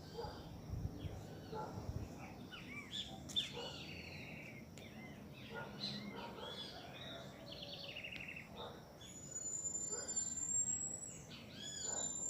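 Several wild birds chirping and singing in a morning chorus, with many short, quick notes. Near the end a thin, high note is held for about two seconds, twice.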